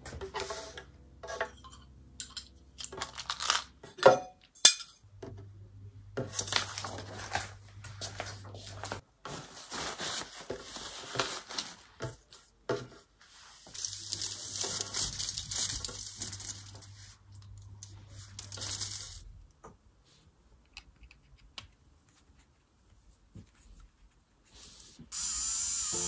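A few light knocks and clicks of small objects set down on a table, then aluminium foil crinkling and rustling as the sheet is handled, in three stretches of a few seconds each, the last about a second long shorter than five.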